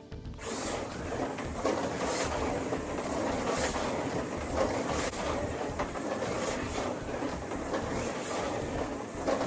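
Toy slot cars running on a slot-car track: a steady rattling buzz of small electric motors and wheels, with brief swells every second or so as cars pass close by.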